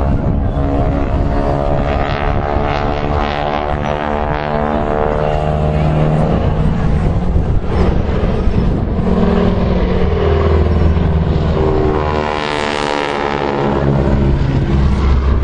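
Piston-engined propeller aircraft flying a low display pass. The engine note falls in pitch as the planes go by, once a couple of seconds in and again towards the end.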